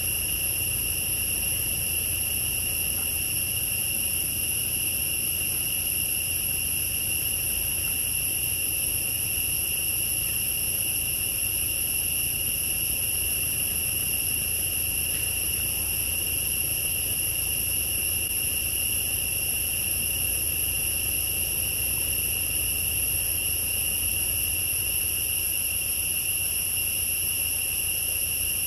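Insects shrilling in one steady, unbroken chorus at several high pitches, over a low rumble.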